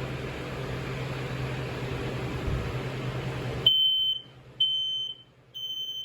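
Kidde i12060A smoke alarm sounding three high-pitched beeps about a second apart, the temporal-three alarm pattern of a test. Before them a steady hiss with a low hum cuts off suddenly.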